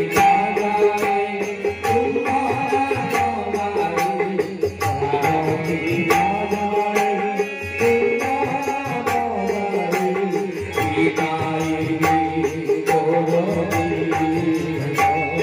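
Devotional bhajan: a male voice singing a gliding, ornamented melody over a harmonium and keyboard, with a steady percussion beat.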